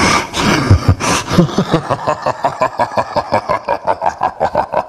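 A man's exaggerated, loud laugh: a fast run of short 'ha' pulses that quickens into an even beat of about seven a second.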